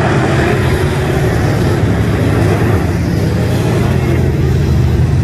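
Engines of IMCA Modified dirt-track race cars running together as a pack: a loud, steady engine noise with the pitch rising and falling at times.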